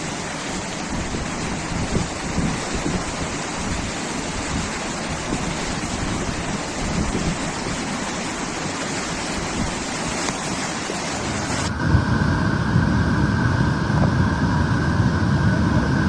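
Flash-flood torrent rushing: a dense, steady noise of fast water. About twelve seconds in the sound changes abruptly to a heavier, lower rush with faint steady tones over it.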